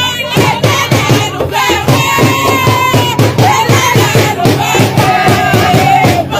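Kompa dance music: a sung vocal line over a steady, even beat.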